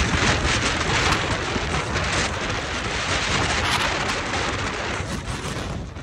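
Gale-force wind buffeting the microphone: a loud, dense rush of noise with heavy low rumbling gusts, thinning a little about five seconds in.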